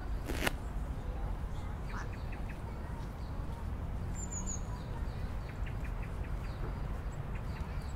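Outdoor ambience: small birds chirping, with several high tweets about four seconds in, over a steady low rumble. A single sharp click sounds about half a second in.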